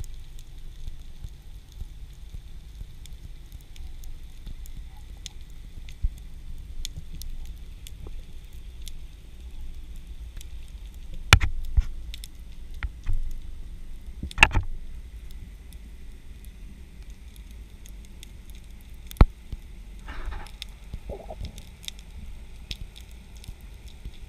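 Underwater ambience heard through a camera's waterproof housing during a breath-hold spearfishing dive: a steady low rumble with scattered faint clicks and crackles. Sharp knocks stand out about eleven seconds in, again about fourteen seconds in and once more near nineteen seconds.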